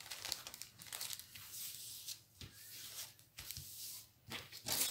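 Clear plastic protective film on a diamond painting canvas crinkling and peeling off the glue as hands lift and smooth it flat, in a series of short rustles.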